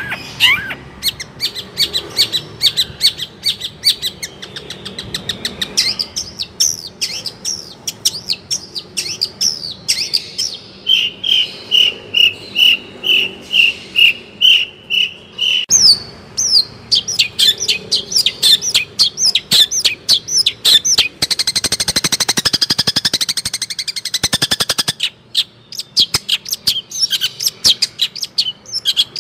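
Long-tailed shrike (cendet) singing a fast, varied song of chirps and trills. About halfway through comes a run of evenly repeated whistled notes, about two a second. Later there is a harsh, buzzy rattle lasting a few seconds.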